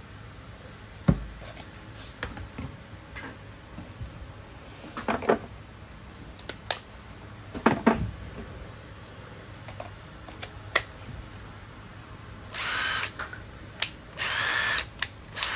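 Panasonic 12 V cordless screwdriver being handled with a few sharp clicks and knocks, then run near the end in two short trigger bursts of about a second each, its motor whining up and back down.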